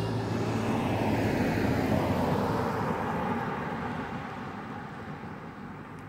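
A car passing and driving away. Its engine and tyre noise is loudest in the first couple of seconds and then fades steadily.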